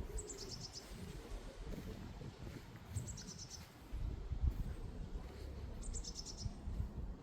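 A songbird singing the same short, high phrase of quick notes three times, about three seconds apart, over a low background rumble.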